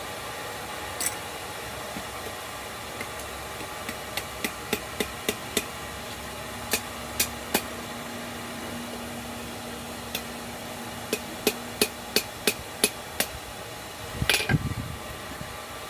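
Hand hammer striking hot steel on an anvil to straighten a bend in a forged knife blade: quick runs of six or seven light blows with single strikes between, and a rougher clatter near the end, over a steady rush of background noise.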